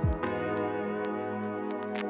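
Instrumental background music. A deep, falling kick-drum beat stops about a quarter second in, leaving sustained chords with light percussion ticks.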